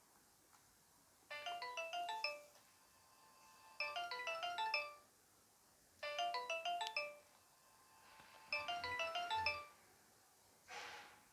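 Nokia 2600 mobile phone ringtone: a short run of quick, high beeping notes, repeated four times with pauses of about a second and a half between. A brief hiss-like burst follows near the end.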